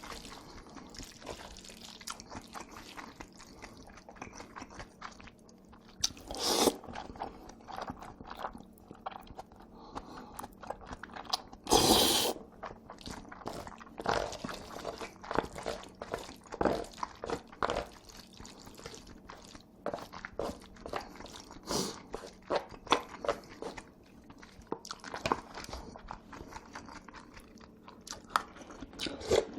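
Close-up eating sounds of Korean-Chinese noodles (jjajangmyeon and jjamppong): steady chewing and mouth clicks, with two louder, longer bursts of eating noise about six and twelve seconds in.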